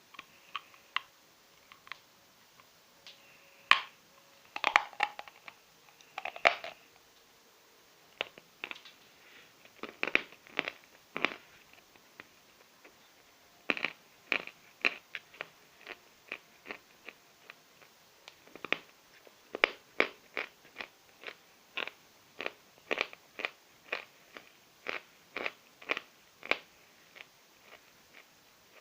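Natural chalk being bitten and chewed: a long series of sharp, dry crunches, scattered and irregular at first, then coming steadily about two a second in the second half.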